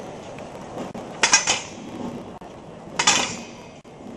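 Short bursts of metallic ringing and clinking, twice, just under two seconds apart, over a low crowd murmur.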